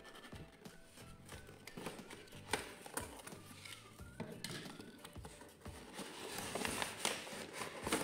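Cardboard toy box being opened: a utility-knife blade slits the end, the flap is folded back and the inner tray is scraped out. The result is irregular clicks and rustling, with a sharp click about two and a half seconds in and denser scraping near the end.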